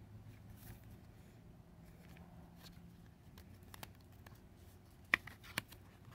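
Hands handling a paperboard photo card sleeve: faint rustles and light taps of card, with two sharp clicks about five seconds in, half a second apart.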